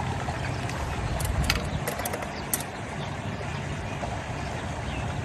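A steady low mechanical hum, like an engine running, with a few faint short clicks in the first half.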